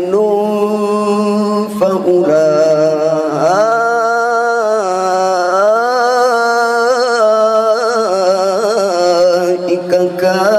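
A male qari reciting the Qur'an in melodic tilawah style into a handheld microphone: long held notes with wavering, ornamented pitch turns and a brief breath pause about two seconds in.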